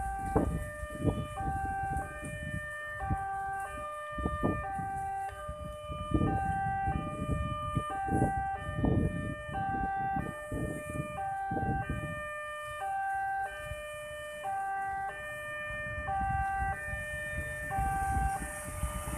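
Railway level-crossing warning alarm: an electronic chime of alternating tones repeating steadily, signalling that a train is approaching. An irregular low rumble runs underneath.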